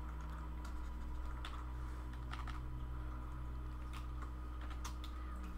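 A few scattered light clicks of computer keyboard keys over a steady low electrical hum.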